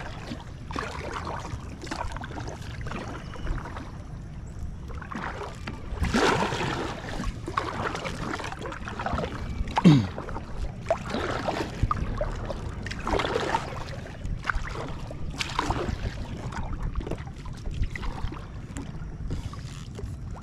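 Water swishing and splashing from what sounds like paddle strokes beside an inflatable kayak, irregular, about one every second or two, over a steady low rumble. The loudest stroke comes about halfway through and carries a short falling squeak.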